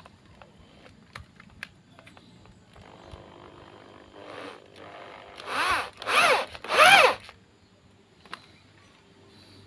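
Electric drill turning an M6×1.0 tap in a threaded bolt hole of a motorcycle engine casing, chasing out rust and old glue from the threads. The drill runs quietly from about three seconds in, then gives three short trigger bursts about two-thirds of a second apart, each speeding up and slowing down in pitch.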